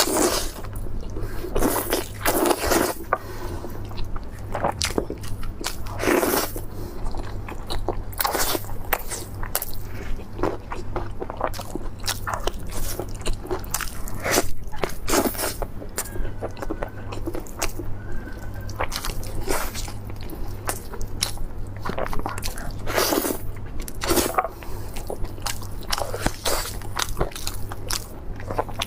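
Close-miked eating: a person biting into and chewing a big pork chop, with irregular crunching bites and chewing throughout.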